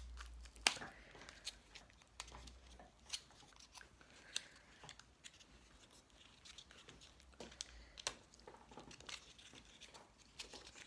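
Small irregular clicks and rustles of a lipstick's packaging being handled and worked open by hand.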